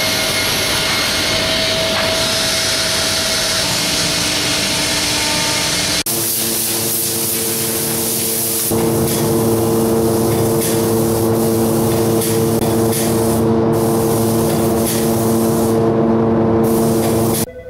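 Steady woodshop machine noise, then a compressed-air spray gun hissing as finish is sprayed onto wooden box newel posts, over a steady hum. The spray hiss cuts out briefly twice near the end as the trigger is released.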